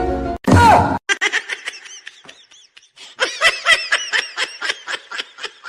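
High-pitched giggling laughter in quick repeated bursts, which come faster and louder about halfway through. A short cry falling in pitch comes just before it, as a burst of music cuts off.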